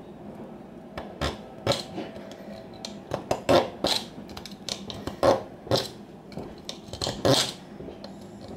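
Plastic pizza saver being cut with a hand cutting tool: a string of irregular sharp snips and crunches, about a dozen, as one of its legs is cut off.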